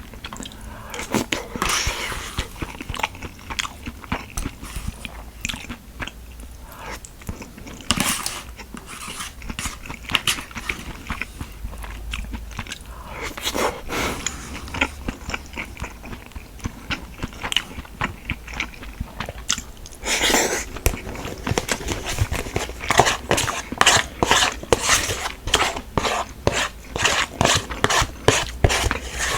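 Close-miked eating sounds: a person biting and chewing food, with many small crunches and crackles. They come thick and fast in the last several seconds.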